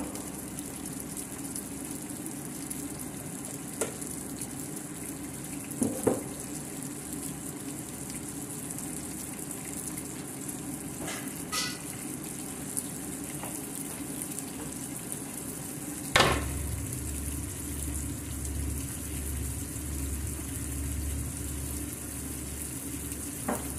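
Beef steak sizzling in a pan of melted butter and olive oil with whole garlic cloves, a steady frying hiss. A few small clicks or knocks, one sharper about two-thirds of the way in, after which a low hum joins.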